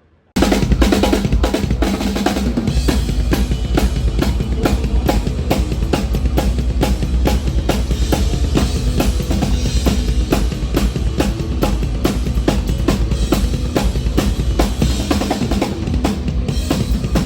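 Rock drum kit played hard and fast in a metal style: rapid snare and cymbal hits over a dense, driving bass drum. It starts suddenly about half a second in.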